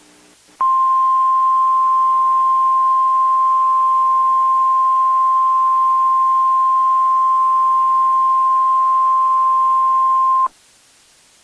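NOAA Weather Radio 1050 Hz warning alarm tone: one loud, steady high tone held for about ten seconds, starting just under a second in and cutting off abruptly. It signals that a warning message, here a severe thunderstorm warning, is about to be broadcast.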